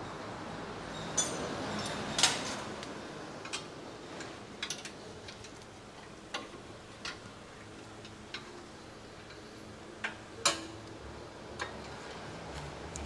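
Scattered metallic clinks and clanks of hand tools and parts as a mechanic works on a Hyundai Elantra Sport's rear suspension during a coilover install, the loudest clanks about two seconds in and about ten and a half seconds in, over a steady workshop hum.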